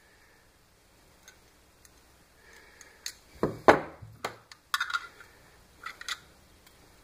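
Handling noises on a wooden workbench: a few faint clicks, then a run of short knocks and rattles as a plastic hot glue gun is picked up and pressed into a bent-wire and cardboard holder. The loudest knock comes about three and a half seconds in.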